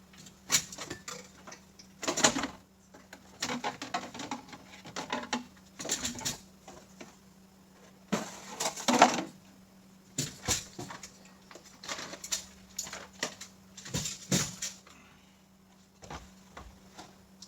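Irregular clicks, knocks and clattering of small hand tools and hard parts being handled, with a few louder knocks, over a steady low hum.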